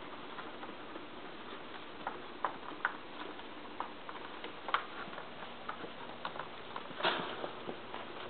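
Yorkie puppies moving about in a wire pen: irregular light clicks and taps of claws and paws on the hard floor, the wire and the plastic basket, with one louder, longer one about seven seconds in.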